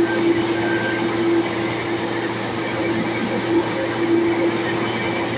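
Airbus A330 jet engines running at idle: a steady rushing whine with a low hum and a thin high-pitched tone on top.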